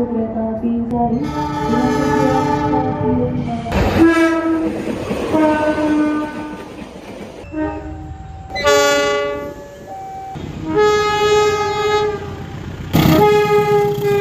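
Indonesian locomotive air horns sounding Semboyan 35, the railway horn signal, in a run of about five chords of several notes each, some sliding to a new pitch. Each chord cuts off suddenly to the next, over the rumble of a running train.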